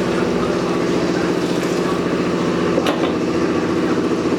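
An engine idling steadily, with one sharp click or knock about three seconds in.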